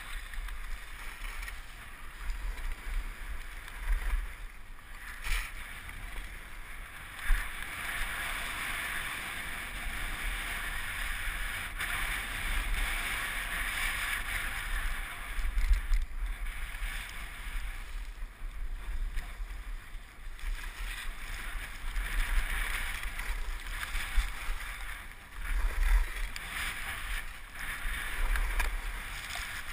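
Skis sliding and scraping over packed snow, a hiss that rises and falls through the run, with wind rumbling on the helmet-mounted camera and a few brief knocks.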